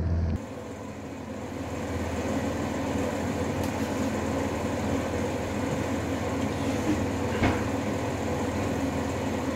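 Electric fan heater running with a steady whir of fan and blowing air, with one short knock about seven and a half seconds in.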